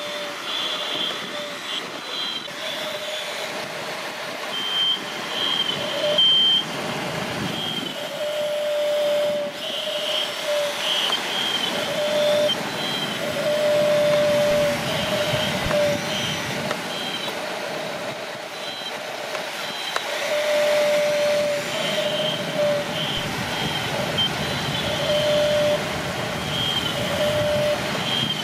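Toy RC excavator's electric motors whining in short on-off runs as the arm digs and swings, over a steady rushing noise.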